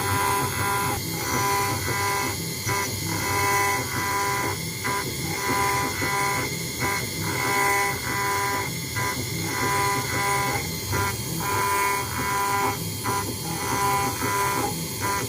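CNC router engraving machine cutting brass, a steady motor whine with several fixed tones that dips briefly in pairs about every two seconds, as the cutting head reverses at the end of each engraving pass.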